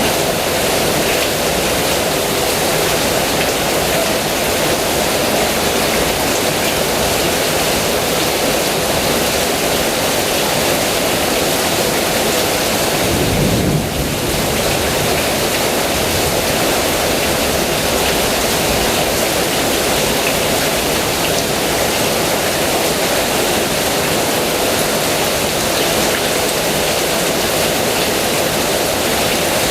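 Heavy rain falling in a steady, dense hiss, with a brief low rumble near the middle.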